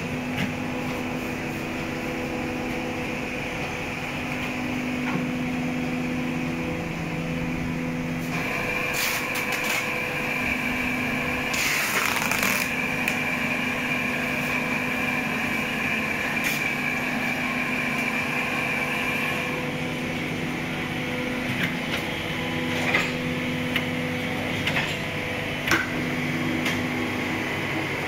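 Plastic injection moulding machinery running with a steady hum. A higher whine joins it for a stretch in the middle, and a few sharp clacks sound near the end.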